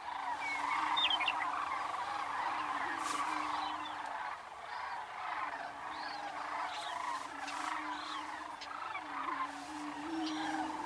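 A chorus of male greater prairie-chickens booming on their lek: low, overlapping hooting moans that rise and fall without a break. Above them runs a steady chatter of cranes, with short meadowlark chirps.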